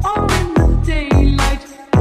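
Background music with a steady beat, heavy bass hits about twice a second and a sliding vocal or synth melody.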